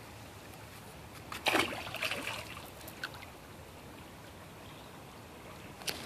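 Shallow, clear creek water trickling over a rocky bed, with a brief splash about a second and a half in as someone wades through it.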